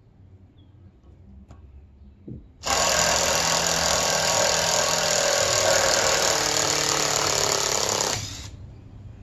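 Cordless power driver sinking a screw into the end of a white oak log, starting abruptly a little over two seconds in, running hard and steady for about five and a half seconds, then stopping.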